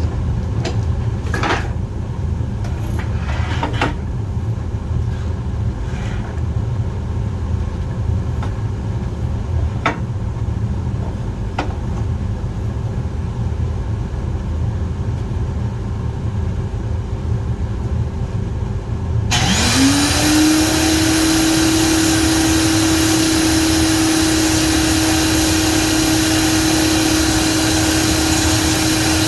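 A low rumble with a few light knocks. About two-thirds of the way in, an electric power-tool motor switches on, whines quickly up to speed and settles into a steady high whine over a loud hiss.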